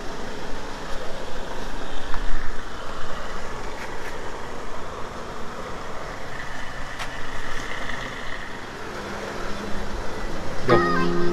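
Steady traffic and vehicle noise around a petrol station forecourt. Music comes in near the end.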